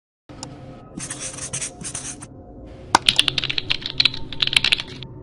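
Computer keyboard typing sound effect: a quick run of sharp key clicks from about three seconds in, after two short bursts of hiss, over a faint steady background hum.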